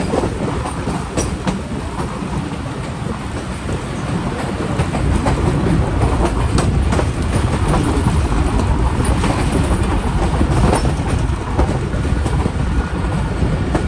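Moving passenger train, heard from an open coach window: the steady rumble of wheels on rail with scattered sharp clacks at rail joints, growing louder about five seconds in.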